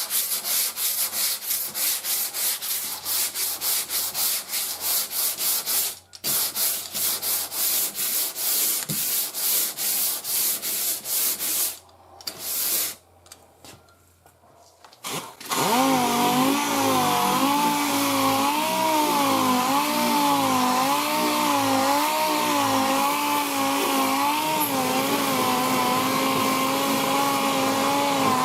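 Sanding block worked by hand over body filler and primer on a car panel, in quick, even back-and-forth strokes. After a short pause, a steady motor-driven tool starts and runs, its pitch wavering slowly up and down.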